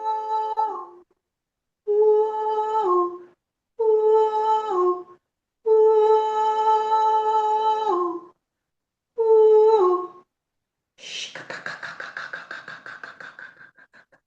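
A human voice humming or toning five long held notes, each stepping down in pitch as it ends. Near the end comes a rapid pulsing trill of about ten pulses a second.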